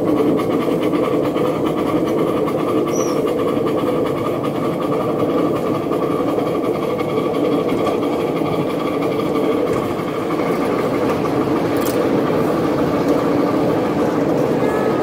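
Coal-fired live-steam miniature locomotive and its riding car running on the track: a steady mechanical running sound of the engine's motion and wheels on the rails, with a sharp click about twelve seconds in.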